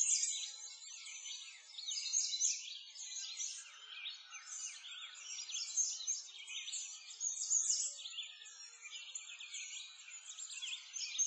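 A dense chorus of small songbirds chirping and trilling, many quick high notes overlapping without a break.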